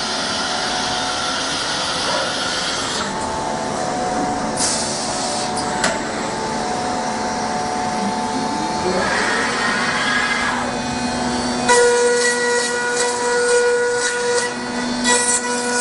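Netmak CNC milling machine running, with steady motor tones and bursts of hiss. A little past halfway a whine rises as a motor speeds up, and near the end it settles into a steadier hum with quick clicking.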